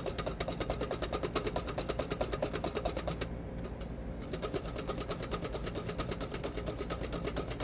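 Wire whisk beating frothy zabaglione (egg yolks, sugar and Marsala) in a stainless steel bowl over a pot of boiling water, the wires clicking and scraping on the metal in rapid, even strokes, lighter for about a second in the middle. The custard is at the ribbon stage.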